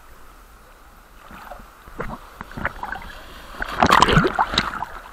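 Sea waves surging and splashing, building to a loud crash about four seconds in.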